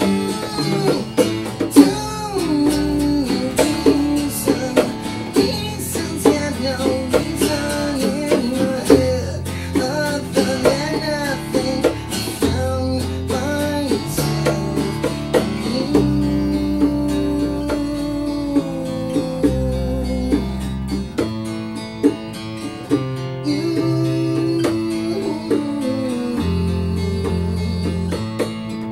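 Live acoustic rock band playing: strummed acoustic guitar with bongos and a low bass line. Over the first half a lead melody slides and bends between notes, and it settles into longer held notes later.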